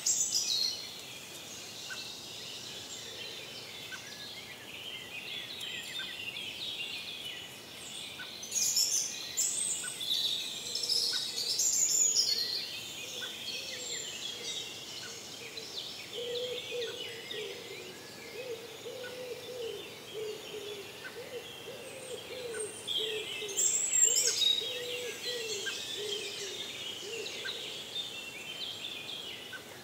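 Several forest songbirds singing over one another, their songs and calls overlapping, with the nearest birds louder now and then. From about halfway through, a low, wavering call repeats underneath until near the end.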